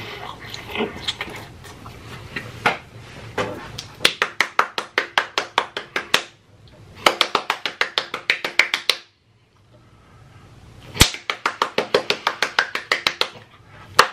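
A person chewing a mouthful of chicken wing, then clapping hands quickly in three bursts of about two seconds each, about six claps a second, with short pauses between them.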